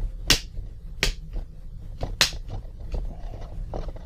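Plastic clips of an HP 15-f004dx laptop's screen bezel snapping into place as the bezel is pressed on: three sharp clicks about a second apart, with fainter ones near the end.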